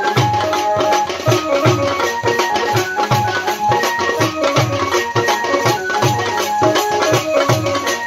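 A Chhattisgarhi folk song tune played by a small band: hand-beaten drums with deep strokes on a steady beat, the clash of small hand-held metal cymbals, and a pitched melody line carried over the rhythm.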